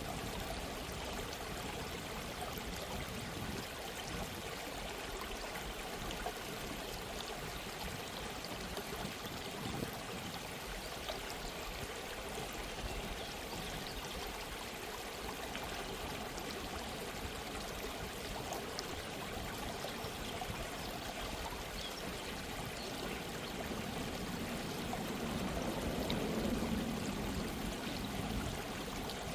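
Gentle stream of running water, a steady babbling flow that swells a little louder for a few seconds near the end.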